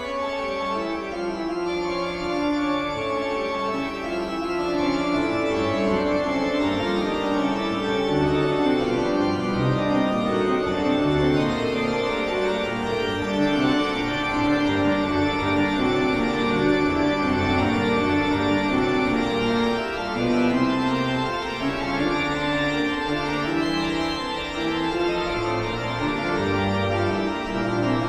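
Eerie Halloween background music played on organ, with held chords that shift from note to note.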